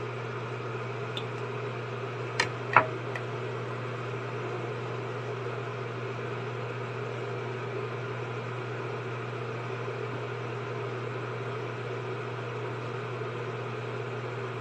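Steady low machine hum, with two sharp knocks close together about two and a half seconds in as a plastic spatula strikes the aluminium pan.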